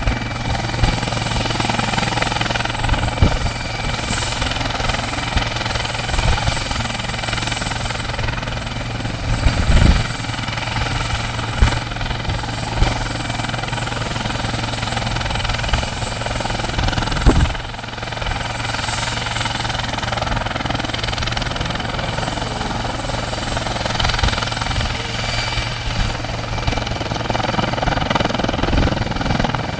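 SouthStar medevac helicopter running steadily as it flies by, its rotor and turbine noise filling the sound, with a few brief low thumps along the way.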